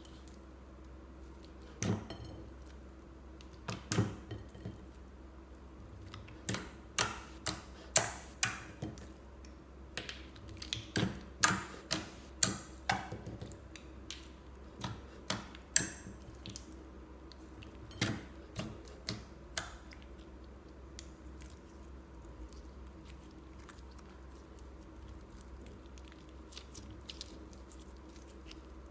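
Clear slime being squished, stretched and folded by hand: a run of sharp, wet pops and clicks, thickest in the middle, fading to soft, faint squishing near the end, over a low steady hum.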